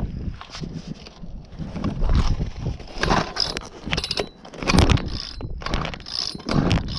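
Gas-powered StrikeMaster ice auger being pull-started: several hard yanks on the recoil starter cord, each a short whirring surge, without the engine catching and running.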